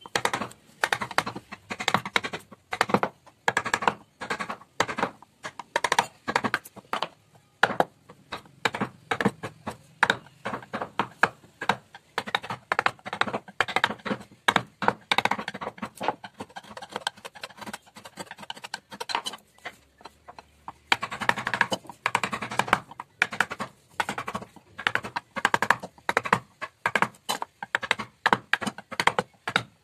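Mallet striking a carving chisel into a wooden panel: a quick, uneven run of sharp taps, a few a second, as the chisel cuts the relief.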